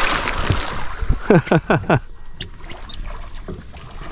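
Wind on the microphone and water slapping around a small boat at sea, with a quick run of four falling tones about a second in.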